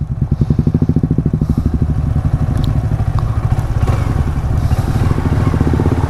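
Motorcycle engine running steadily at low revs, an even beat of about ten firing pulses a second.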